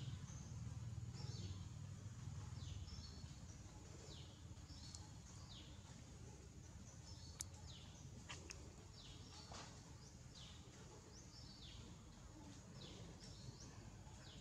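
Faint bird calls, short high chirps that slide downward, repeating about every second over low outdoor background noise.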